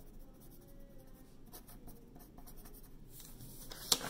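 Hand-writing on paper: a writing tool scratching out a name in quick, faint strokes, with a sharper stroke near the end.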